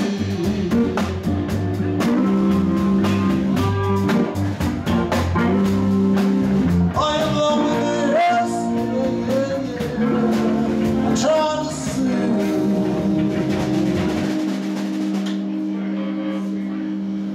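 A live band playing electric guitar and drum kit with a steady low bass line. About fourteen seconds in, the drums and low notes stop and the last held notes ring out as the song ends.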